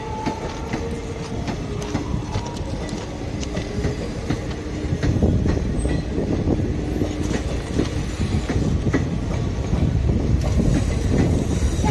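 Indian Railways second-class passenger coaches rolling past, their wheels rumbling and clattering over rail joints, with faint squealing tones in the first half. The rumble grows louder about five seconds in.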